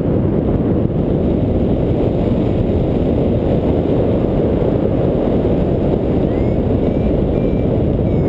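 Airflow buffeting the microphone of a camera carried on a paraglider in flight: a loud, steady rumble of wind noise.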